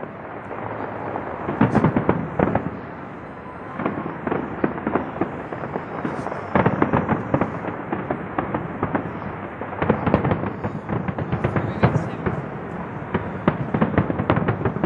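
Aerial fireworks going off: a continuous run of bangs and crackling, bunching into dense volleys about every couple of seconds.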